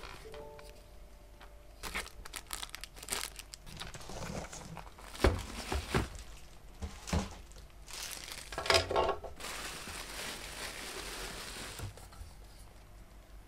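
Packaging crinkling and tearing as an online-order parcel is unwrapped by hand, in irregular crackles with a few sharper rustles, then a steadier rustle that fades near the end.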